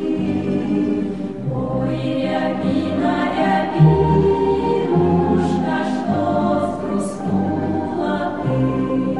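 A choir singing, with held chords over low bass notes that move about once a second.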